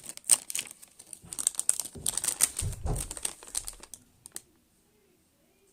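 Crinkling and clicking of plastic packaging being handled and rummaged through, with a dull thump about three seconds in; it dies away after about four seconds.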